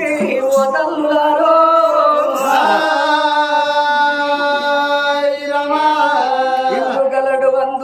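Oggu katha folk singing: a voice chanting a drawn-out sung phrase in long held notes.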